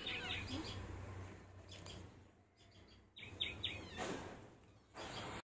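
Small birds chirping in quick runs of short notes, twice. In between and near the end come soft rustling scrapes as the kittens tumble against the plastic mesh basket.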